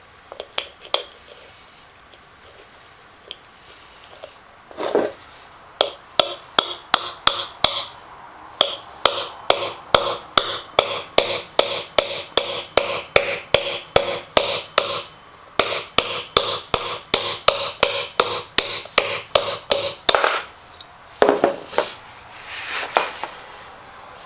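Repeated hammer blows on metal: a steady run of sharp strikes, about three a second, each with a short metallic ring, broken by a brief pause and followed by a few rougher knocks near the end.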